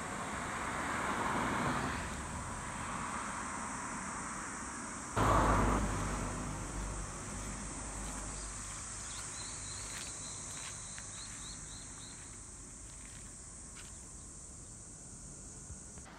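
Steady high-pitched insect chorus over outdoor background noise. A broad swell of traffic-like noise comes in the first two seconds, and a sudden low rumble starts about five seconds in and fades away.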